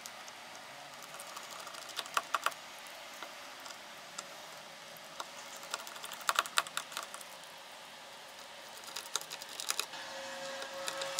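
Small screws being driven into a plastic speaker button-panel cover with a precision screwdriver: the bit and screws give small sharp clicks in short clusters, three or four times, over faint room hiss.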